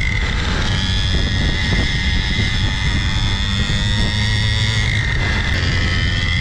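A 49cc air-cooled single-cylinder two-stroke pocket dirt bike engine running under way with a high, buzzing whine, its pitch dipping and rising a couple of times as the throttle changes, over a steady lower engine drone.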